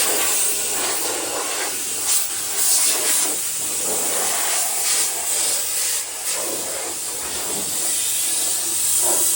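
A loud, steady hiss of rushing air that swells and dips several times.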